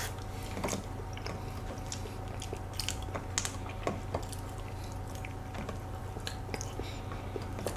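Close-miked chewing of soft cream cake, with scattered small clicks of metal spoons against clear plastic dessert cups.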